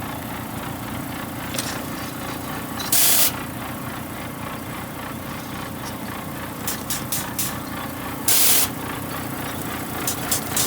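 Ploughing machine's engine running steadily under load. Two short, loud hisses cut in about three and eight seconds in, with a few sharp ticks near the end.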